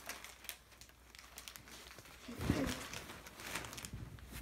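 Rustling and crinkling as a hand rummages inside a filled Christmas stocking among plastic-wrapped small gifts, with a louder bump about halfway through.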